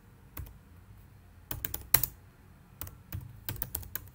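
Computer keyboard being typed on, keys clicking in short irregular bursts as a terminal command is entered.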